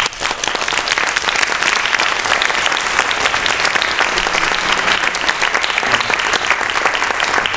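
Audience applauding: many hands clapping in a dense, even patter that breaks out all at once and holds steady.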